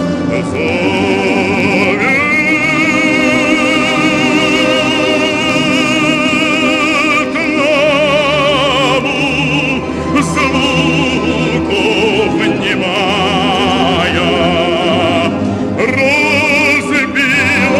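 Male bass singing a classical Russian romance in operatic style, holding long notes with a wide vibrato.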